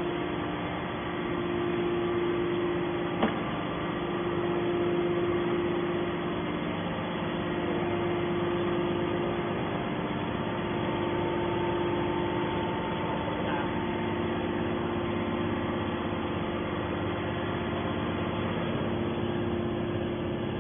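Hydraulic baler's power unit running: a steady machine hum with a held tone, and one short click about three seconds in.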